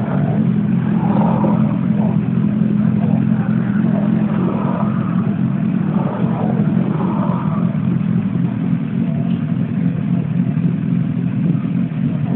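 Motorcycle engine idling steadily, with no revs, and faint voices in the background during the first several seconds.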